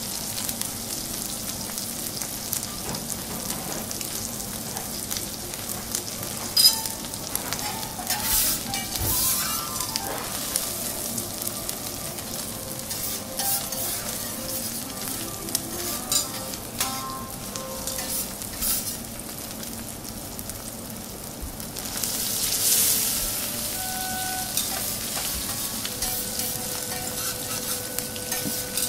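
Thick Akita beef steak sizzling and crackling as it sears in its own juices on a steel teppanyaki griddle, with scattered sharp clicks of tongs and spatula against the griddle.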